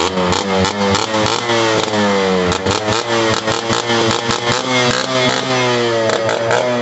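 Yamaha RX135's single-cylinder two-stroke engine revved hard again and again, its pitch sliding down after each blip of the throttle, with quick sharp pops from the exhaust.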